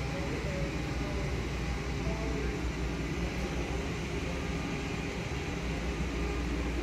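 Steady store ambience: a low, even rumble of background noise with faint, indistinct voices.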